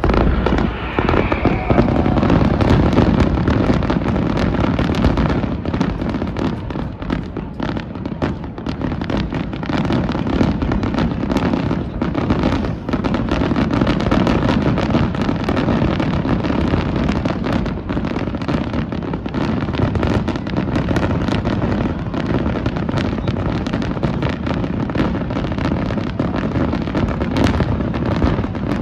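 Aerial fireworks exploding in a dense, continuous barrage: many booms overlapping with sharp crackles and pops.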